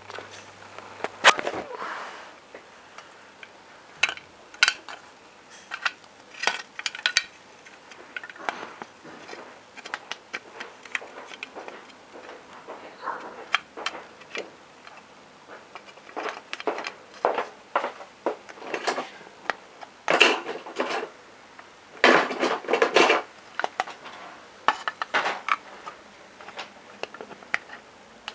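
Sharp clicks and light metallic clatter from elevator push-buttons being pressed and handled on a small metal button panel, coming in irregular clusters, with the loudest bursts about twenty and twenty-two seconds in.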